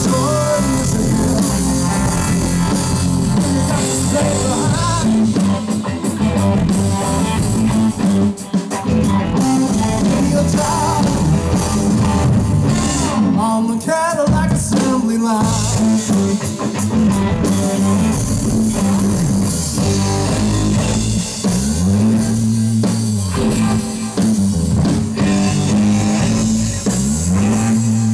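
Live electric blues band playing: a man sings over a Stratocaster-style electric guitar, a bass guitar and a drum kit. The bass slides up and down in pitch several times in the second half.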